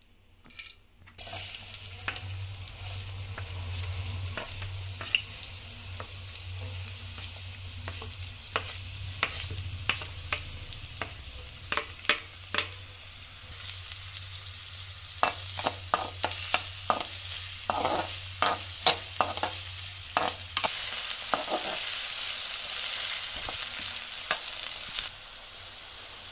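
Chopped onions and green chillies sizzling in hot oil in an aluminium kadai, the sizzle starting about a second in as the onions hit the oil. A steel spatula stirs and scrapes them, clicking against the pan, with the clicks coming quickly in a run of strokes past the middle.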